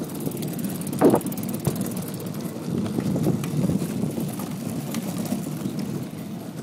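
Rolling rumble and rattle of a plastic toy wagon's hard wheels on asphalt as a bicycle tows it, steady throughout, with one brief louder bump about a second in.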